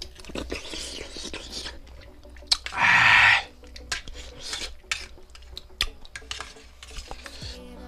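Steel spoons clinking and scraping on stainless steel plates in short, irregular taps. About three seconds in comes a loud hiss of breath lasting under a second.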